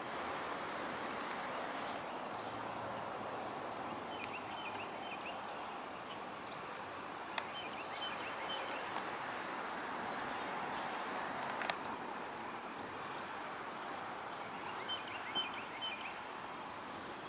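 Outdoor ambience: a steady hiss of background noise, with birds giving short high chirps in three brief clusters and two sharp clicks, about seven and twelve seconds in.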